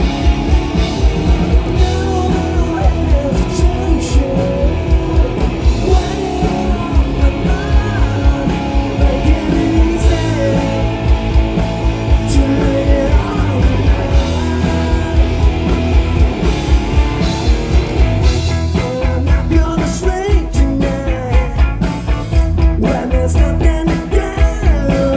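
Live rock band playing a song: electric guitars, bass and a drum kit keeping a steady beat, with a man singing lead vocals.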